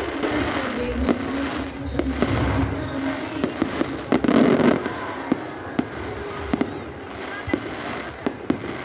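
Aerial fireworks going off: a run of sharp bangs and crackling pops, with the loudest burst about four seconds in.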